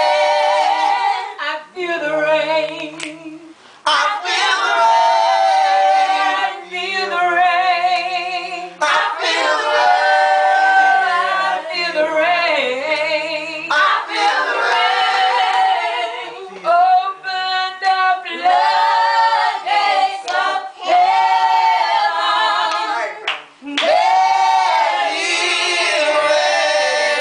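A small group of mostly women's voices singing a gospel song a cappella, with held notes and no instruments, and an occasional sharp clap.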